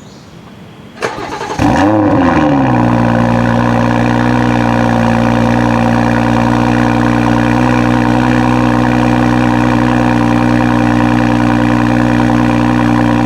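Cold start of a 2018 BMW X3 M40i's turbocharged 3.0-litre inline-six. A click and a brief crank about a second in, then the engine catches with a quick rev flare that rises and falls. It settles into a steady, loud cold fast idle.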